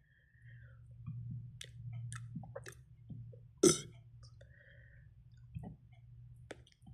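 A person's mouth and throat noises between deliberate burps: scattered small clicks and gulps, with one short, loud burp about halfway through. A steady low hum runs underneath.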